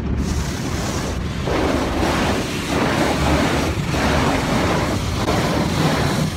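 Automatic car wash spraying water and foam over the car, heard from inside the cabin: a loud rushing wash that swells and dips about once a second.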